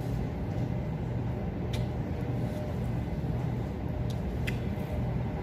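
Steady low droning background hum of a large dining hall, with two faint clicks, one about two seconds in and one about four and a half seconds in.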